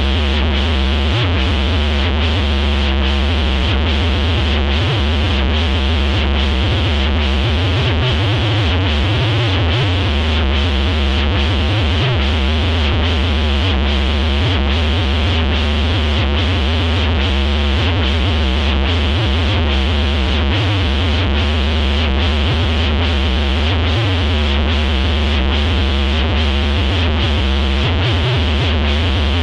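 Loud, distorted electronic synthesizer music with heavy bass and a steady beat, running without a break.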